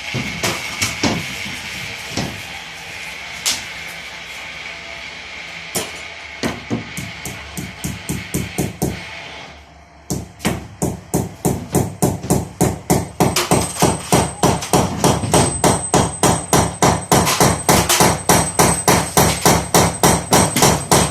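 Hammer blows: scattered knocks at first, then about ten seconds in a fast, even run of strikes at roughly four a second.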